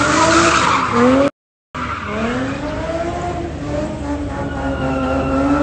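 A car engine held at high revs while its tyres squeal in a drift, the pitch rising and falling with the throttle. The sound breaks off for a moment about a second in. Then the engine climbs again and holds a high, fairly steady note.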